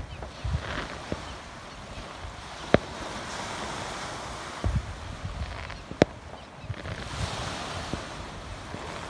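Distant fireworks going off: several sharp cracks, the loudest about three and six seconds in, with low thuds between, over a steady noise of wind and waves.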